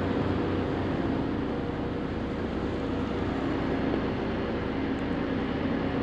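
Engines of a Carver 504 motor yacht running steadily under way, a low, even drone.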